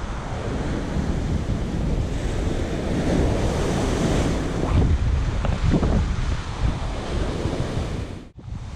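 Surf breaking on a sand beach, with strong wind buffeting the microphone; the sound drops out briefly near the end.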